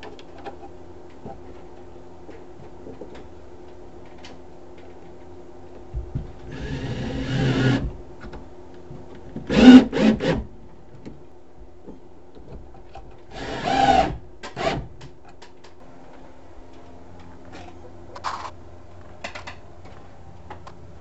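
Cordless drill driving screws into wooden framing to fasten conduit straps, in several short runs of about a second each, the loudest about ten seconds in. A steady low hum runs underneath.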